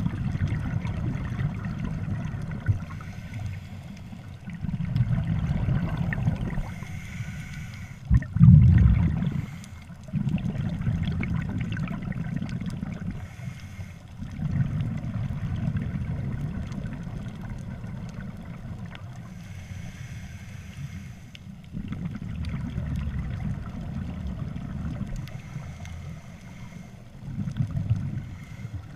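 Scuba regulator breathing underwater: a low bubbling rumble on each exhale, with quieter gaps between them, repeating every few seconds. A sharp knock about eight seconds in is the loudest moment.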